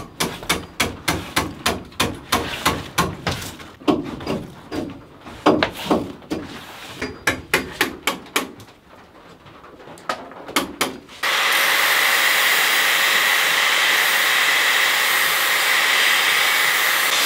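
A hand tool strikes dead bark on a pine log again and again, about two knocks a second, chipping off bark that has fused to the wood. About eleven seconds in, a loud, steady rushing noise with a faint hum cuts in suddenly and takes over.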